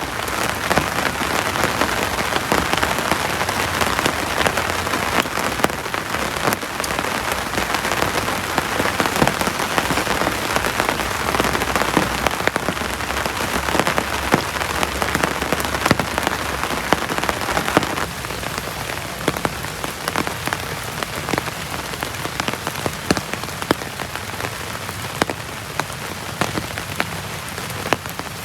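Heavy rain falling steadily, dense patter with many sharp individual drop impacts, easing slightly about two-thirds of the way through.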